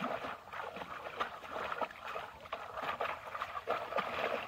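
Shallow muddy pond water sloshing and splashing in small irregular dabs as hands grope about inside bamboo cone fish traps pressed into the water.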